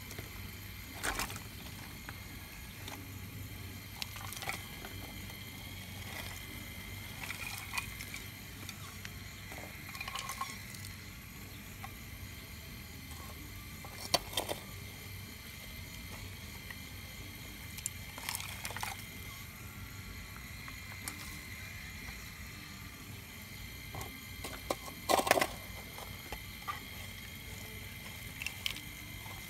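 Radio-controlled Caterpillar 349 model excavator digging shale: a steady whine from its motors under scattered clicks and clatters of the bucket scraping and breaking loose shale, the loudest clatters about halfway through and near the end.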